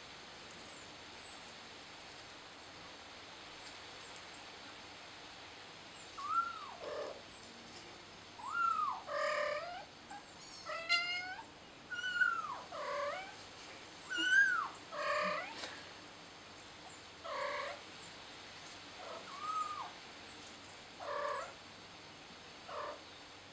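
Kitten mewing over and over, a string of short, high, arching cries that begins about six seconds in, the calls roughly a second apart.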